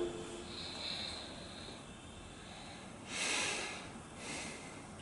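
A person breathing out near the microphone, twice: a louder breathy puff about three seconds in and a shorter, softer one about a second later.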